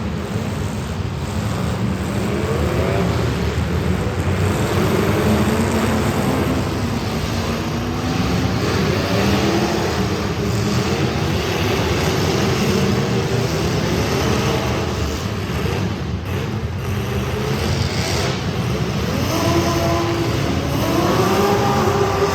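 Street stock race car engines running on track, their pitch rising and falling again and again as the cars accelerate and back off, over a steady rumble.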